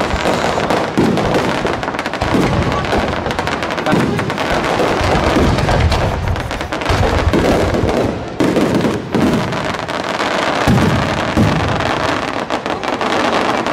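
Aerial fireworks display firing a dense barrage: many overlapping bangs and crackling, with no break.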